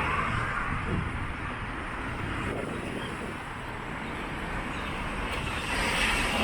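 Street ambience with road traffic: a vehicle running, getting louder near the end.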